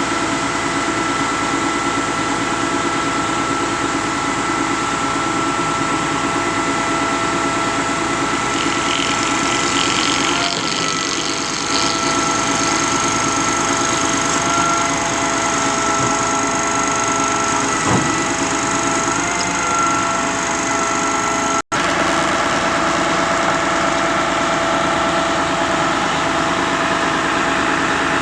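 Concrete pump's engine running steadily, with a steady whine over the drone. The sound cuts out for an instant about three-quarters of the way through.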